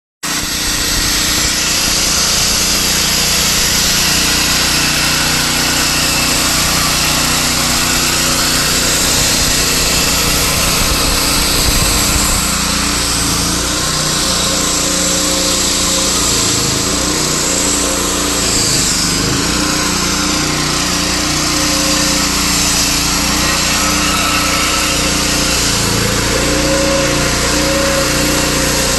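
Concrete-cutting saw running and cutting concrete: a loud, steady motor with a gritty hiss, its pitch shifting slightly now and then under load.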